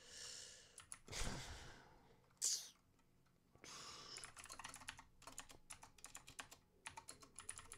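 Typing on a computer keyboard: a quick run of light keystroke clicks through the second half, after a few short, soft hissing noises early on.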